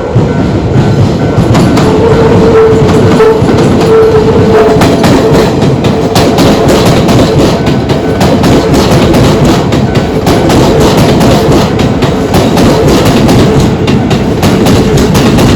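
Electric train passing close by over the level crossing, its wheels clattering rapidly over the rail joints.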